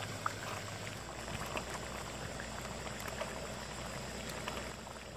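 Chicken curry simmering and bubbling in a pan over a gas-cylinder burner, with a steel ladle stirring the gravy and clinking against the pan a few times.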